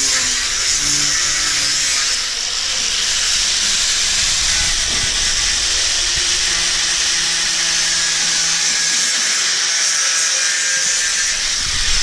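Handheld electric rotary sander with a sanding disc running steadily against a fibreglass (GRP) boat hull, a loud, even, high-pitched grinding hiss as it abrades the hull surface.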